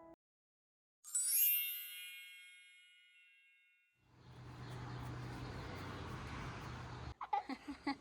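A single bright, shimmering chime struck after a second of silence, ringing out and fading over about three seconds. Steady room noise with a low hum follows, and a few short high-pitched yelps come near the end.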